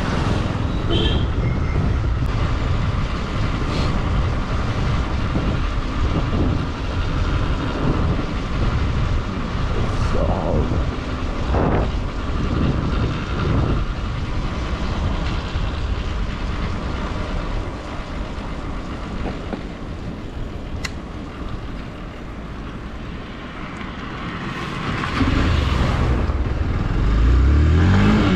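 Wind rushing over the microphone of a moving motorcycle, with the bike's engine running underneath. Near the end the engine revs up as the bike accelerates.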